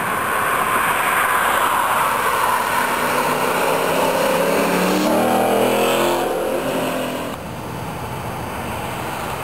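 Porsche Cayenne GTS with Fabspeed secondary cat delete pipes accelerating past, its V8 exhaust note rising in pitch as it goes by, then falling away a little past the halfway point.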